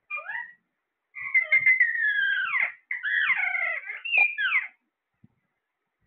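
Caged Alexandrine parakeets calling: a brief call at the start, then two long stretches of wavering calls that slide up and down in pitch, stopping just before five seconds in.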